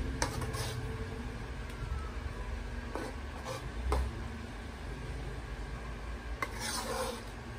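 Spatula stirring thick creamy spaghetti sauce in a metal pan, scraping and knocking against the pan in a few separate strokes, with a longer scrape near the end, over a low steady hum.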